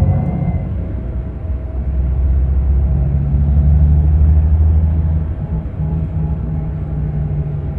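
Diesel engine of a Scania K360 double-deck coach running with a deep, low drone; it grows louder toward the middle and eases off about five seconds in.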